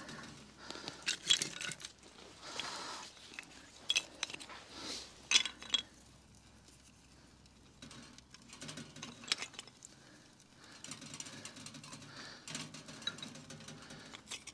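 Dry kindling sticks being placed by hand into a small titanium wood stove's firebox: scattered wooden clicks and knocks against the other sticks and the thin metal box, with light rustling in between.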